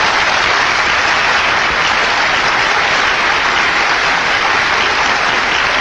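Steady, dense applause from a hall full of assembly delegates.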